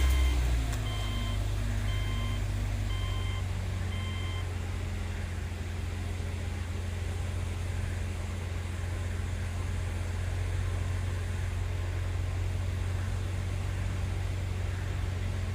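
2006 Subaru Tribeca's 3.0 L flat-six engine idling steadily just after starting, running smooth with no misfire on cylinder 1 after its ECU connector pins were resoldered. A chime beeps five times, about once a second, in the first four seconds.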